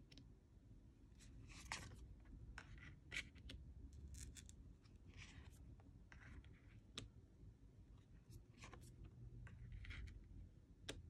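Faint handling of thick cardstock oracle cards: short swishes as cards slide off the deck and soft ticks as they are laid on a cloth-covered pile, at an irregular pace.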